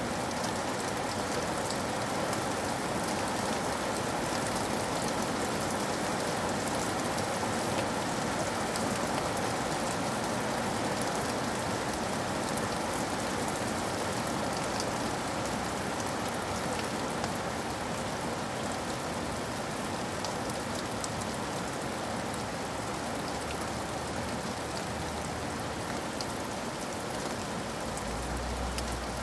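Steady rain falling and pattering on hard surfaces, with fine drop ticks scattered through it; a low rumble comes in near the end.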